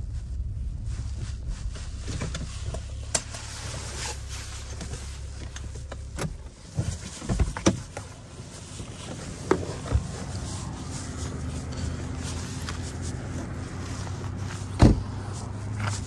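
2013 Nissan Maxima's 3.5-litre V6 idling steadily, with scattered clicks and knocks from handling the cabin controls, then one sharp bang near the end, a car door shutting.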